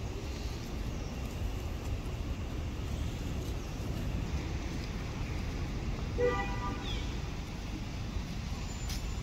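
Outdoor background of a steady low rumble, with one short flat-pitched toot about six seconds in and a few faint high chirps.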